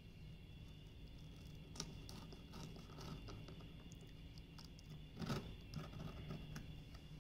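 Faint clicks and rustles of paper being cut and picked at on the paper covering of a lion dance head, with a sharper click about two seconds in and a louder rustle a little past five seconds.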